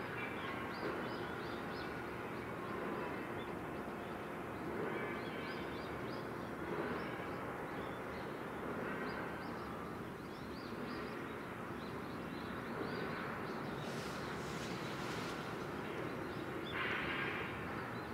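Steady low outdoor rumble across a harbour, with small birds chirping in short scattered runs throughout.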